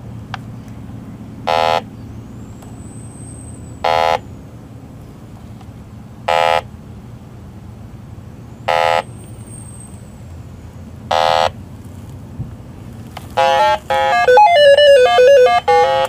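Electronic refrigerant leak detector beeping once about every two and a half seconds, then breaking into a loud, fast run of beeps that jump in pitch as its probe picks up refrigerant leaking at the air conditioner's service valve cap. Underneath, the steady hum of the running AC condensing unit.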